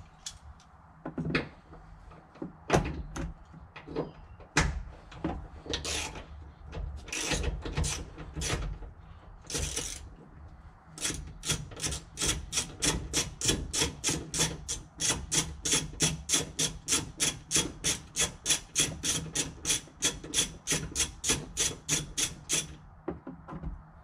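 Hand socket ratchet with an extension and a 10 mm socket backing a bolt out. First come a few scattered clicks and scrapes as the socket is fitted and worked. Then comes a long, even run of ratchet clicks, about four a second, which stops shortly before the end.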